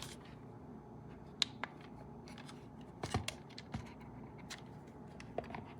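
Light, scattered clicks and taps from small objects being handled, a cluster of them about three seconds in, over a faint room background.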